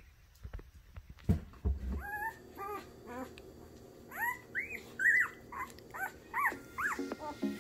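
Siberian husky whining: a run of short, high cries that each rise and fall in pitch, after two dull thumps in the first couple of seconds.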